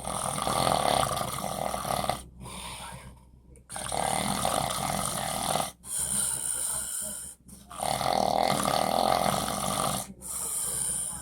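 A man snoring in his sleep, one long snore with each breath, about five in a row with short breaks between and a softer breath about two and a half seconds in.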